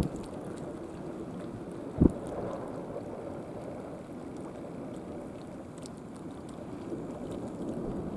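Wind blowing across the microphone: a steady low rush with a sharp low thump of a gust about two seconds in.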